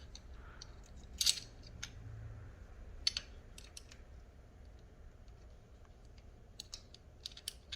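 Scattered small clicks and taps of hand tools and small parts being handled while a screw is fitted, the sharpest about a second in, another about three seconds in, and a quick run of clicks near the end.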